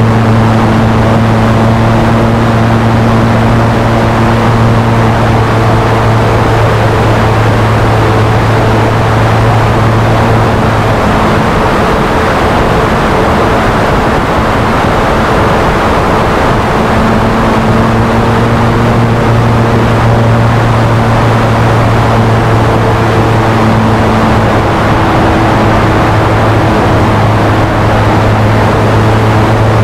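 A large radio-controlled Spitfire's 60cc gasoline engine and propeller running in flight, heard from a camera on the tail, with steady wind rush. The engine note is steady, eases back for several seconds in the middle as the throttle comes down, then returns.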